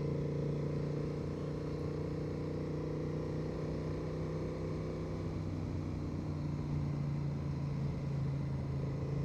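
2025 Honda Transalp 750's parallel-twin engine running at a steady cruise, with wind and road noise; the engine note holds an even pitch throughout.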